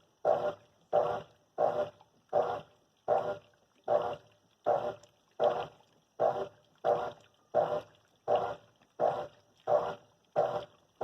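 GE Multi Capacidade 10 kg top-loading washing machine agitating: its motor drives the agitator in strokes that come regularly, about one every three-quarters of a second, each rising quickly and fading.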